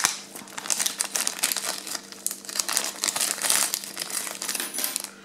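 Small clear zip-lock plastic bag crinkling and crackling as fingers open it and work offset fishing hooks out of it, with a sharp click right at the start.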